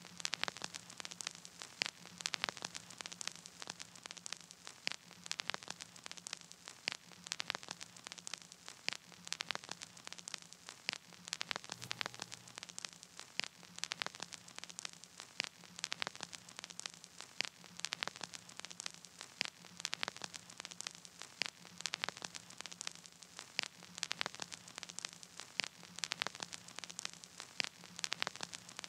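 Crackling static: a steady hiss broken by many irregular sharp clicks, over a faint low hum, with no music.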